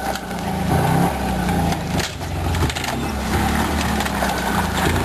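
Gas golf cart engine running, its pitch rising and falling, over a noisy haze of scraping with irregular knocks and crunches from the battered water heater dragged behind it on a chain.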